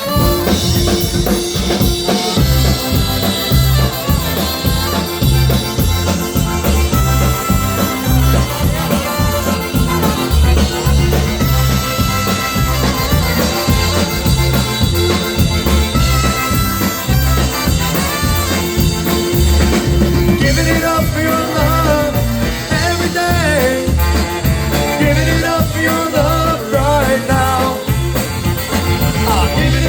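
Live band music: an upbeat instrumental passage with a steady drum-and-bass beat under brass lines, which turn into a busier, wavering melody from about two-thirds of the way in.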